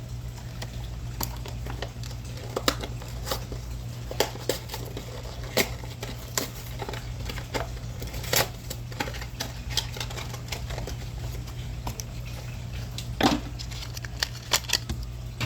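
Irregular sharp clicks and crinkles of a toy car's plastic packaging being handled and pried open, over a steady low hum.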